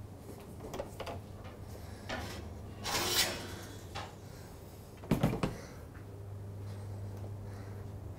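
Oven door and steel roasting pan being handled as the roast lamb is taken out: a short scraping sound about three seconds in, then a heavy thud of the door shutting about five seconds in, over a steady low hum.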